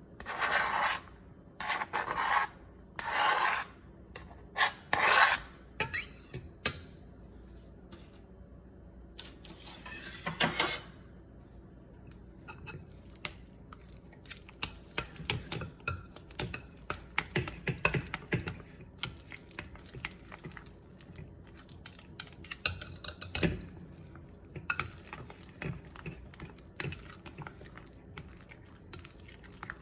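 Kitchen utensils scraping: about five rasping strokes in the first six seconds and another near ten seconds, then many light clicks and taps of utensils.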